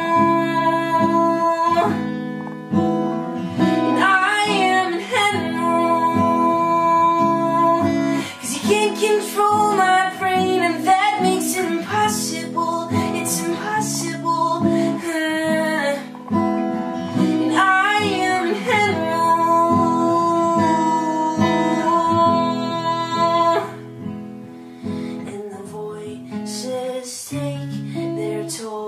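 Acoustic guitar song, with a singing voice gliding between notes but no clear words. It turns quieter about 24 seconds in.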